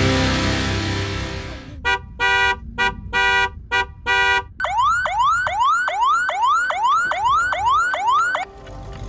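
A car horn honked in a string of about six short and longer blasts, then an electronic car siren giving a rapid rising wail that repeats about twice a second before cutting off.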